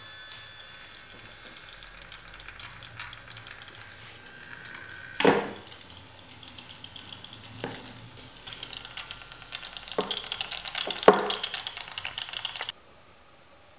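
BugHunter Professional BH-03 bug detector's speaker giving a rapid crackle of clicks that thickens and grows louder as the detector is brought up to a transmitting device, showing rising signal strength, then cuts off suddenly near the end. Four sharp knocks from handling stand out, the loudest about five seconds in and near eleven seconds.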